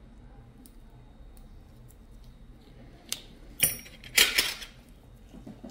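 Small metal objects clinking and clattering: a sharp click about three seconds in, then two louder, short clattering bursts about a second later.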